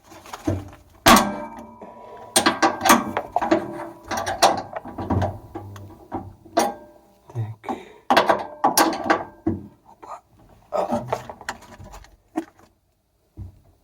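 Hand tools clicking and clattering against metal in irregular bursts while a Bosch washing machine's shock absorber (damper) is being unfastened from underneath, going quiet near the end.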